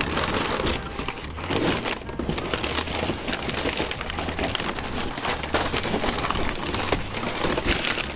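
Crumpled continuous-feed printer paper with perforated tractor edges crinkling and rustling continuously as handfuls are lifted and squeezed out of a cardboard box.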